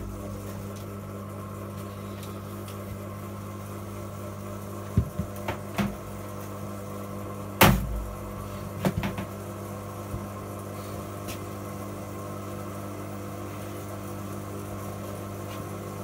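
Hoover Ecologic 1300 washing machine running with a steady low hum on its fast spin programme. A few knocks and clunks come around the middle, the loudest about halfway, as the machine's top lid is lifted off and set down.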